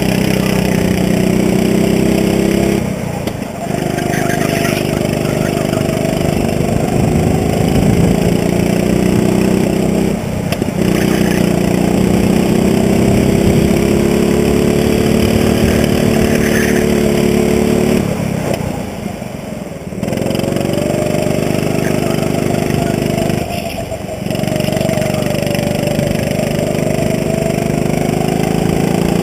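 Go-kart engine running hard, heard from the driver's seat; its revs drop briefly four times as the throttle is lifted, and the note climbs again each time as the kart accelerates away.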